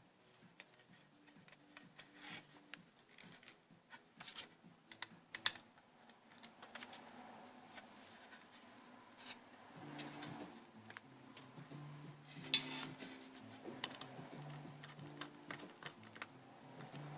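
Scattered light clicks and taps of small hard parts being handled while a Nielsen aluminium sectional frame is put together, with two sharper knocks, one about five seconds in and one about twelve seconds in. Quiet background music comes in about ten seconds in.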